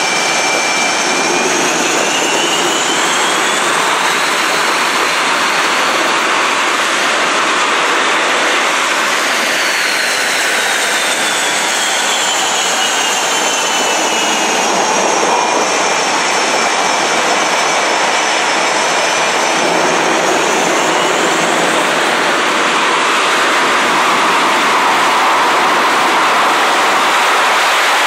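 F/A-18 Hornet's twin jet engines running on the catapult before launch: a loud, steady rush with high whines that slowly rise and fall.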